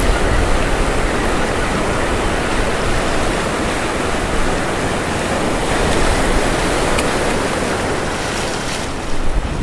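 Ocean surf washing in around the legs close to the microphone: a steady, loud rushing hiss, with one small click about seven seconds in.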